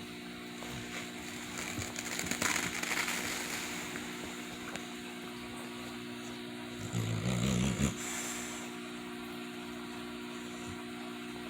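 Sleeping dog snoring: a breathy breath about two seconds in, then a louder, low, fluttering snore around seven seconds in, over a steady electrical hum.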